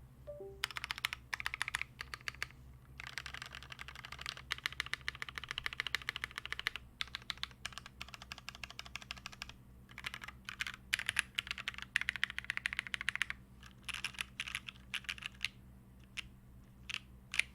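Typing on a Ply.wrks Spyder TKL mechanical keyboard with Cherry MX Black Hyperglide linear switches in an aluminium plate and OG Cherry dye-sub keycaps. The keystrokes come in fast bursts broken by brief pauses, ending with a few scattered presses.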